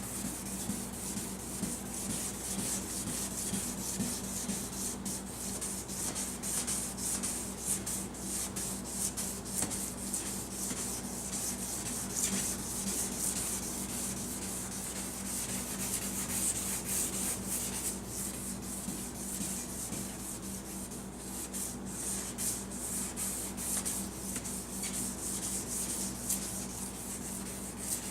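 Fine abrasive sanding pad rubbed in rapid, continuous strokes over a plastic headlight lens, taking a thin layer off the yellowed, oxidised surface. A steady low hum lies underneath.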